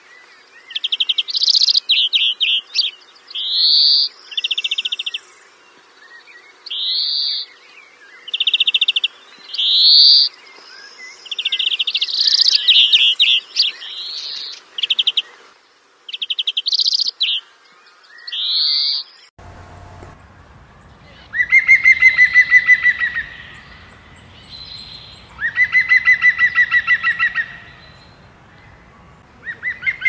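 Birds calling: a string of short, sharp chirps and quick rising notes, then, about 19 seconds in, a different call takes over, runs of rapid evenly pulsed notes about two seconds long, repeated three times.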